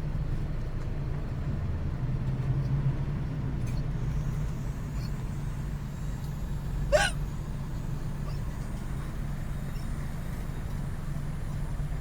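Car engine idling steadily, heard from inside the cabin, with a single sharp hiccup about seven seconds in, one of a bout of uncontrollable hiccups.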